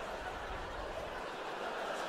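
Faint, steady murmur of a live theatre audience with a little quiet chuckling, held during a pause in the comedian's story.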